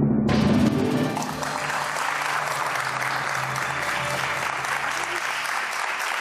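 Studio audience applause breaks out about a quarter second in, greeting a correct answer on a TV quiz show. It plays over a low, held music sting that fades over the first couple of seconds.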